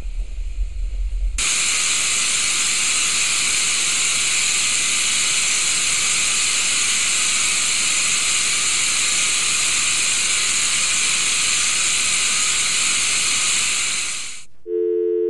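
Low rumble, then, about a second and a half in, a loud steady hiss of television static that runs on and fades away near the end. Just before the end a steady two-note telephone tone starts.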